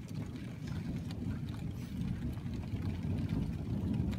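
Thunder rolling: a low, steady rumble.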